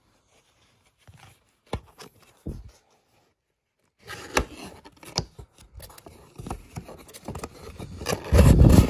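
Cardboard model-car box being opened at its end flap and handled: a few scattered clicks of the flap and tab, then continuous scraping and rubbing of cardboard from about four seconds in, loudest and heaviest near the end as the hand works inside the box.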